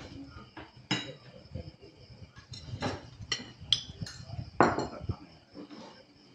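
Spoons clinking and scraping against plates and serving bowls while food is dished up, a series of separate clinks with the loudest about two-thirds of the way through.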